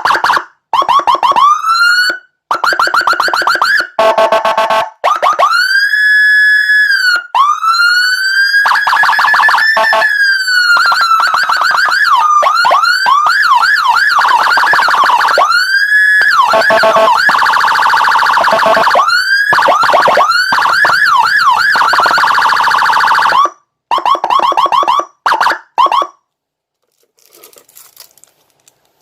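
A 200 W electronic siren with a Whelen Alpha tone chip, sounding through a TS300N siren speaker and switching between its tones every few seconds: slow rising-and-falling wails, fast yelps and rapid warbling, with brief gaps between them. It cuts off a few seconds before the end, and a few faint clicks follow.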